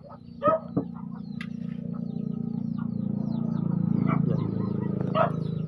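A vehicle engine passing: a low steady hum that swells to its loudest about four seconds in, then fades. Small bird chirps and a couple of short animal calls, likely chickens, sound over it.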